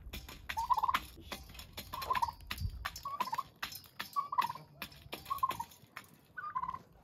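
Domestic turkeys calling, a short rising call repeated about once a second, six times in all, with many sharp clicks and taps in between.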